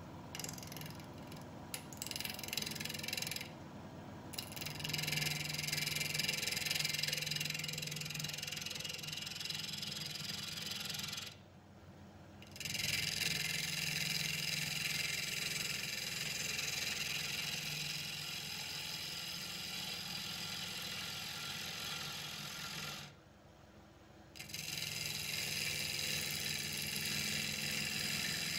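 Bowl gouge cutting the face of a spinning willow bowl blank on an Omega Stubby wood lathe: a steady shearing hiss over the lathe's hum. It starts with a few short touches and twice stops for about a second as the tool comes off the wood.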